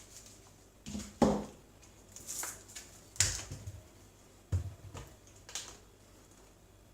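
A laptop's plastic case being handled as its battery is unlatched and taken out: a handful of sharp plastic clicks and knocks, spaced a second or so apart, the loudest in the first half.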